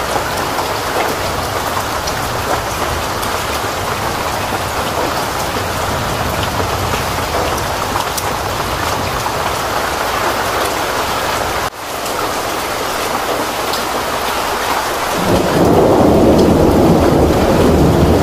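Heavy rain pouring steadily, with a brief break about two-thirds in. Near the end the sound turns louder and deeper, a heavy rumbling rush.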